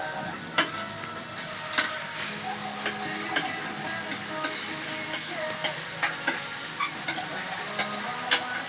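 Sliced bitter gourd being sautéed in a pan, sizzling steadily, while a spatula clicks and scrapes against the pan about once a second.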